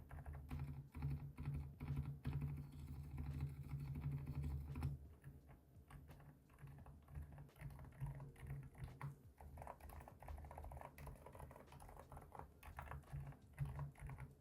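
Typing on a mechanical keyboard fitted with unlubricated Kailh Deep Sea Silent tactile switches, a fast, dense run of muffled, dampened keystrokes. The typing is heavier and louder for about the first five seconds, then lighter.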